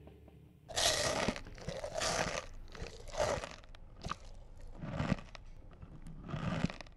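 A series of about six separate crunching, crinkling bursts, each lasting about half a second.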